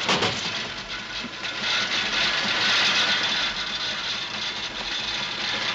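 A steady mechanical clatter of many fast, fine ticks, like running machinery.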